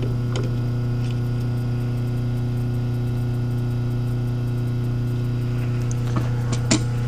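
Steady low electric hum of a running shop machine, even and unchanging, with a few light clicks about six seconds in.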